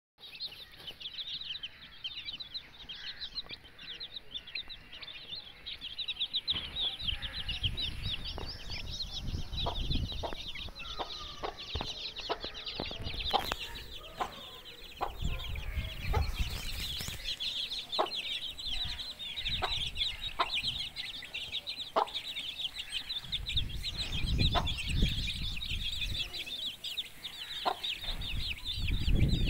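A brood of chicks peeping nonstop in many overlapping high chirps, with a hen's short clucks breaking in now and then. A low rumbling noise comes and goes after the first few seconds.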